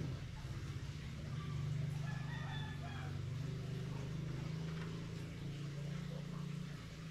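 A rooster crowing once about two seconds in, over a steady low hum.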